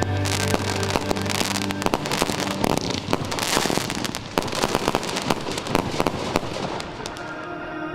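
Fireworks display: a dense run of bangs and crackling shell bursts, with music underneath that fades about three seconds in.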